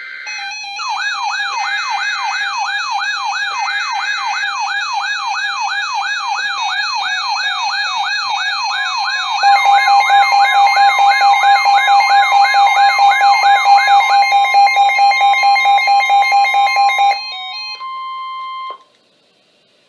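Electronic alarm siren sweeping up and down quickly, about two and a half sweeps a second. About halfway through, a steady alert tone near 1050 Hz (the NOAA Weather Radio warning alarm tone) joins and everything gets louder. The siren stops near the end, leaving the steady tone alone for a second or two before it cuts off.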